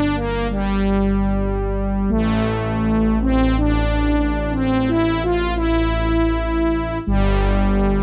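IK Multimedia Syntronik J-8 software synth, an emulation of the Roland Jupiter, playing a brass patch: sustained chords over a steady low bass, with a moving upper line. Each new note or chord opens bright and then mellows, and there are fuller chord changes about two and seven seconds in.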